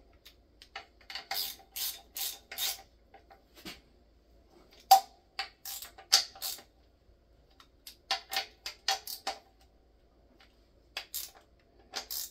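Hand ratchet wrench running down the pump bolts in a GM 4L80e transmission's bellhousing: quick ratcheting strokes in groups of three to five, with short pauses between. A sharp metal clink about five seconds in is the loudest sound.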